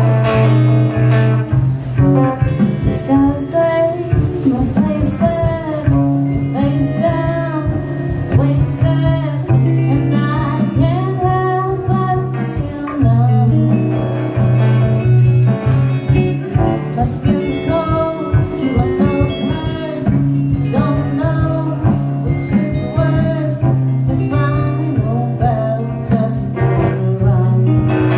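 Live rock band playing a song: singing over electric guitars, bass guitar and drums.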